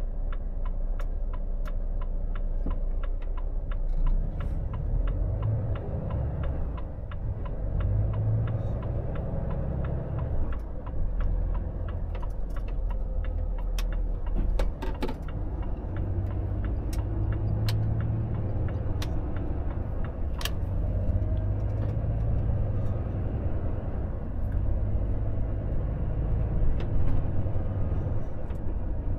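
Volvo FH truck's diesel engine and road noise heard inside the cab: a steady low rumble as the truck pulls away and picks up speed. The turn-signal indicator ticks evenly, about three times a second, for the first few seconds, and a few single clicks from the cab come later.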